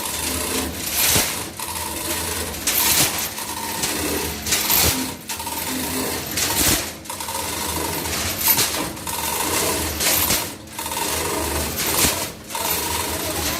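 Repaired cutting machine running under load as material is fed in, with a loud cutting stroke about every one and a half seconds over a steady hum.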